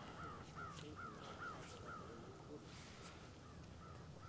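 A bird calling faintly: a quick run of about six short, arched calls in the first two seconds, then a few fainter calls.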